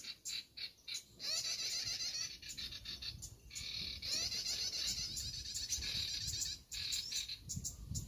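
Recorded bird-call lure played through a speaker to draw small songbirds such as the plain prinia: rapid, high chirping phrases that repeat in long runs, broken by short pauses near the start, about three seconds in and just before the end.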